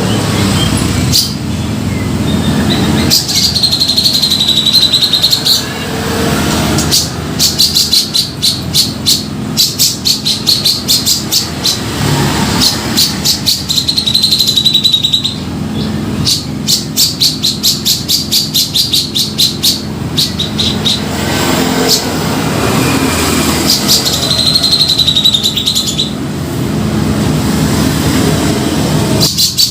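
Grey-cheeked bulbul (cucak jenggot) calling over and over. Buzzy notes are held for about a second, alternating with fast runs of sharp chattering notes, about seven a second, over a steady low hum.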